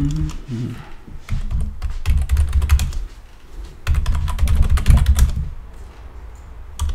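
Computer keyboard typing in quick runs of keystrokes, two busy bursts about two and four seconds in, then fewer, scattered keypresses near the end.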